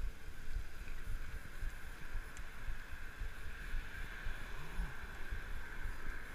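Wind buffeting the microphone of a camera riding on a moving tandem bicycle, a low, gusty rumble over a steady hiss from the ride.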